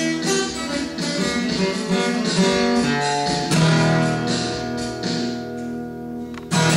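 Acoustic guitar strumming chords. About three and a half seconds in, a chord is struck and left to ring out and fade, and a fresh loud strum comes in near the end.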